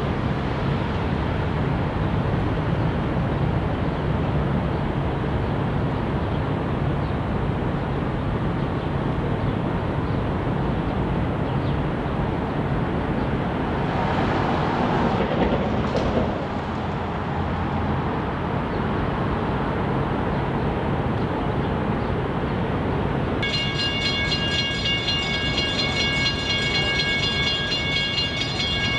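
Amtrak bilevel Superliner passenger train rolling on the rails, a steady rumble throughout. Near the end a high, steady squeal joins in suddenly.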